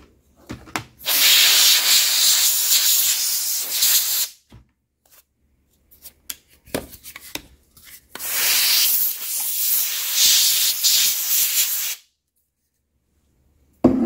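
Air duster blowing dust and pet hair out of an opened ThinkPad T460 laptop: two long hissing blasts of about three and four seconds, with a few small handling clicks between them.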